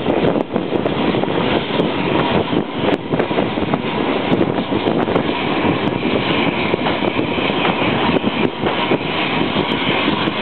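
Norway's oldest steam locomotive running slowly into a station, heard from on board: a steady rattling rumble of the wheels and running gear with small clicks and knocks through it.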